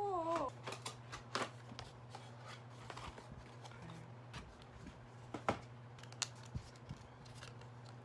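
Cardboard chocolate boxes being handled and turned over: scattered light taps, scrapes and rustles over a steady low hum. A brief wavering voice-like sound comes right at the start.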